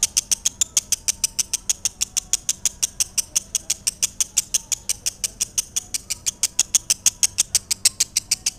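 Lovebird singing a long, fast run of shrill, evenly repeated chirps, about seven a second, that stops abruptly near the end: the sustained chattering song bird keepers call ngekek.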